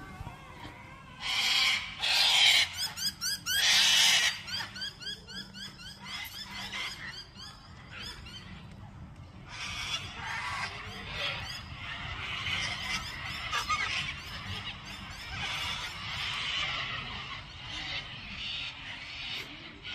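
A flock of white cockatoos screeching. Three loud, harsh screeches come in the first four seconds over a din of many smaller repeated calls, then the flock keeps up a continuous chorus of squawks.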